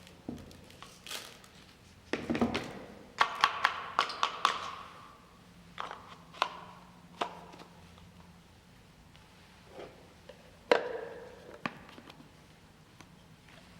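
Plastic clicks, taps and knocks of a handheld vacuum's dust bin being handled while it is emptied and refitted, with a busy run of taps a few seconds in and a sharper knock near the end. The vacuum's motor is not running.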